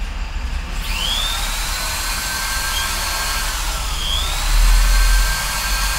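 Electric hand drill motor spinning up about a second in to a steady high whine, dipping briefly and speeding up again around four seconds in. A low rumble swells just after the dip.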